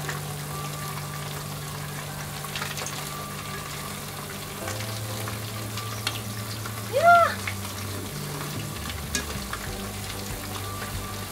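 Pancake batter frying in olive oil in a nonstick frying pan, sizzling steadily, with light scrapes and taps of a nylon slotted turner as a broken pancake is pushed back into place. About seven seconds in comes a short squeak that rises and falls in pitch, the loudest sound.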